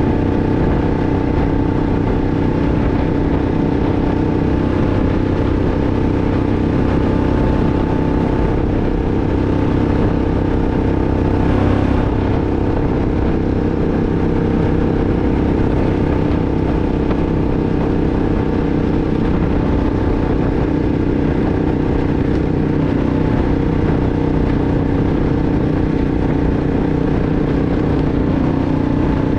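2006 Arctic Cat 500 ATV's single-cylinder four-stroke engine running steadily, its pitch holding level, with a brief louder rush of noise about twelve seconds in.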